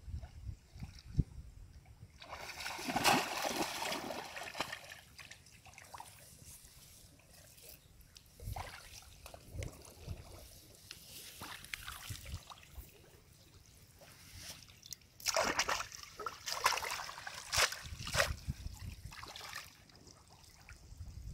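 Shallow paddy water splashing and sloshing as a person wades and works a woven bamboo plunge-basket fish trap, in irregular bursts with quieter trickling between. The loudest splashing comes a couple of seconds in and again about two-thirds of the way through.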